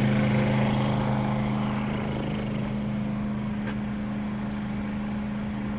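Portable generator's engine running at a steady speed, an even hum that eases off slightly about a second and a half in.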